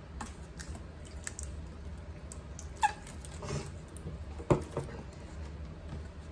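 Plastic squeeze bottle of mayonnaise squirting and sputtering onto fried fish, with a short squeak about three seconds in and a sharp knock of the bottle being handled about a second and a half later.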